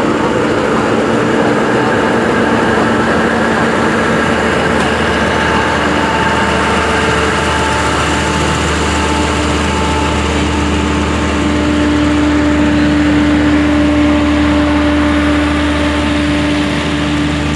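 Eastern & Oriental Express passenger train pulling slowly out, its carriages rolling past with a steady engine hum and wheel-on-rail noise. The hum grows a little stronger in pitch about two-thirds of the way through.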